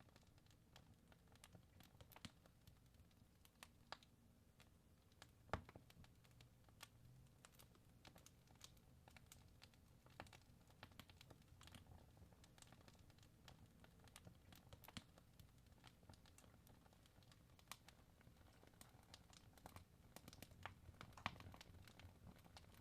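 Wood fire crackling in a fireplace: faint, irregular snaps and pops from the burning logs over a low steady rumble, with a sharper pop about five and a half seconds in and another near the end.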